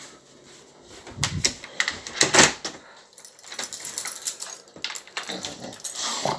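An irregular run of clicks and rattles from a glass-panelled door being opened, its latch and hanging chain rattling: a few sharp clicks about a second in, then a longer patch of rattling from about four seconds in.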